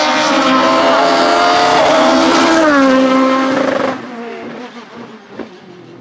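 Osella FA30 racing prototype's engine at full throttle, its pitch climbing and then dropping sharply about two and a half seconds in, as at a gear change. The sound falls away suddenly about four seconds in, leaving a fainter engine note.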